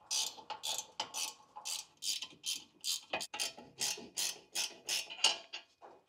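Spanner ratcheting in quick, even strokes, a short click about two or three times a second, while undoing the bolts that hold a front wheel-bearing hub assembly to the steering knuckle.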